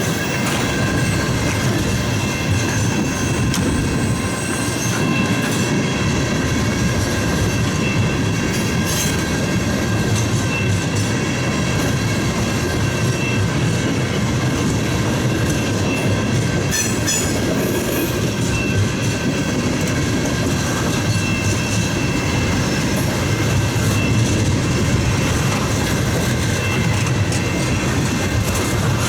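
Railcars of a CN train rolling steadily past a level crossing: a continuous rumble and clatter of wheels on the rails, with a few thin, steady high tones over it. No horn or bell sounds.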